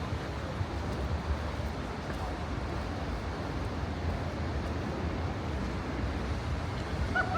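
Steady outdoor city ambience: a low rumble with an even hiss over it, and no single clear event. A brief pitched call sounds near the end.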